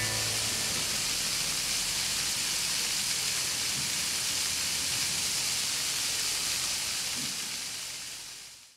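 Fountain water jets spraying and splashing, a steady hiss that fades out near the end.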